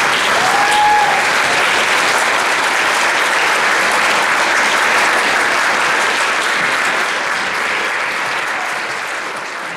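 Audience applauding steadily, easing off slightly toward the end, with one short rising whistle about half a second in.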